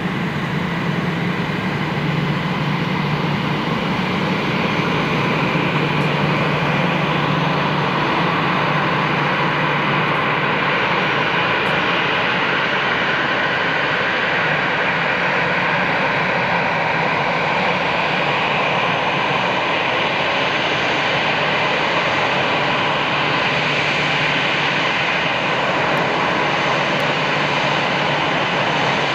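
Airbus A320's CFM56 turbofan engines running at taxi power as the airliner taxis, a steady jet engine noise that grows a little louder over the first few seconds.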